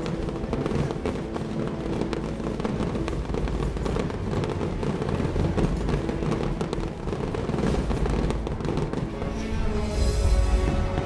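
Fireworks crackling and popping over the show's music soundtrack, with a louder burst about ten seconds in as an aerial shell opens.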